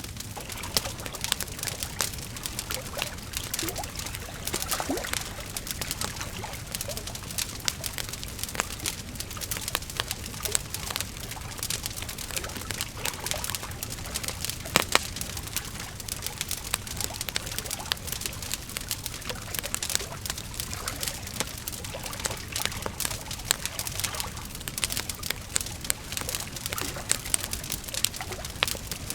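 Campfire crackling: dense, irregular pops and snaps over a steady low rumble, with one louder pop about halfway through.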